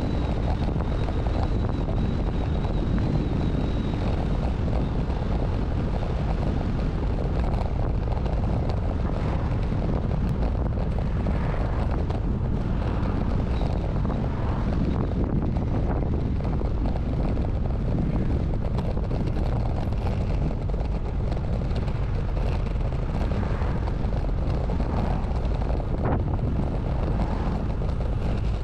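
Steady low wind rumble buffeting a GoPro camera's microphone while moving along a road.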